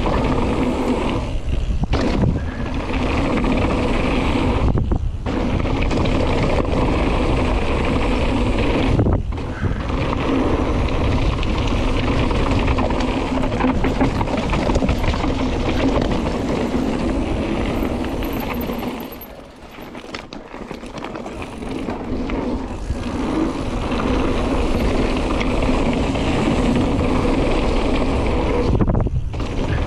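Mountain bike descending a downhill trail, heard from the rider's camera: a loud, steady rush of tyres on dirt and rock with rattling from the bike, broken by several short lulls and a longer quieter dip about two-thirds of the way through.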